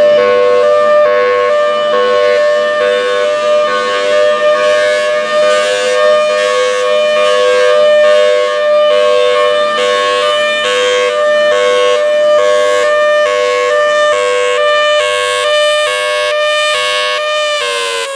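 Federal Signal Thunderbolt 1003 tornado siren sounding its hi-lo signal, loud, the two tones alternating about once a second. Near the end its pitch starts to drop as the siren winds down.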